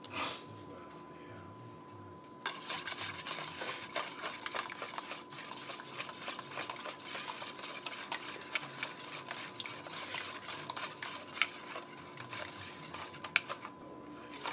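Wire balloon whisk beating egg and milk in a plastic bowl: a fast, dense ticking of the wires against the bowl. It starts about two seconds in and stops shortly before the end.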